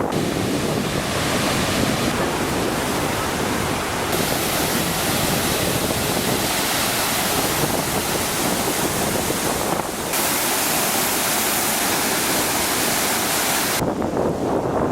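Steady rushing of a river in flood, swollen by a typhoon, mixed with wind buffeting the microphone. The noise changes abruptly in brightness a few times, about 4, 10 and 14 seconds in.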